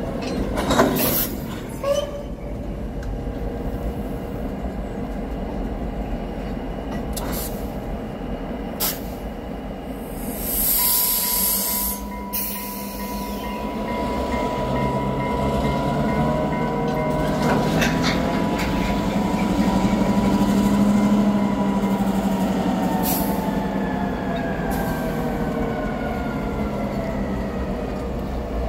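Freight train rolling slowly through a rail yard, with cars passing. There are several sharp clicks of wheels over rail joints early on and a brief hiss about ten seconds in. From there a steady high-pitched wheel squeal runs through the middle, and the rumble grows loudest around two-thirds of the way through.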